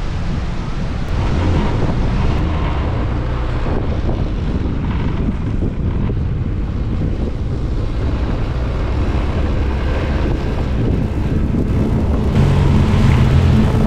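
A vehicle engine running at speed, buried under heavy wind buffeting on the microphone. The engine's steady note comes up more clearly near the end.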